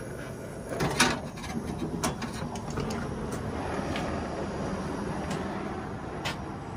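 Brazing torch hissing against a copper line on a refrigeration compressor as the joint is heated to unsweat it, with a burst of metallic clinks and knocks about a second in and a few lighter knocks after as the line comes away from the compressor.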